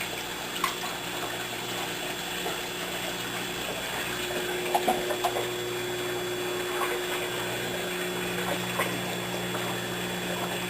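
Aquarium circulation pumps and wavemaker powerheads running, with a steady electrical hum under the even rush of moving water. A faint higher steady tone joins about four seconds in.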